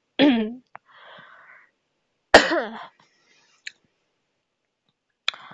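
A woman's voice between sentences: a short vocal sound and a breath, then a single sudden cough about two seconds in, the loudest sound here, followed by a small click and a brief sound near the end.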